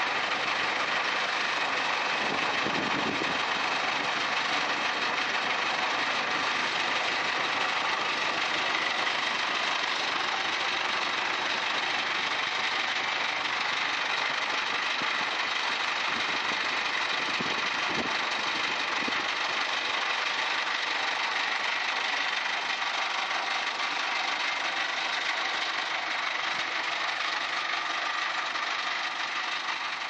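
Heavy machinery engine running steadily at a constant speed.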